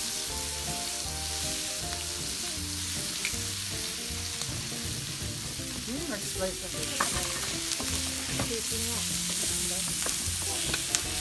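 Meat sizzling steadily on the hot steel sear plate of a wood-fired fire pit, with a few sharp clicks now and then.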